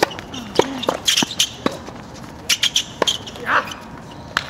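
A tennis serve struck with a racket, followed by a quick exchange of sharp racket hits and ball bounces on a hard court, with brief shouts from the players.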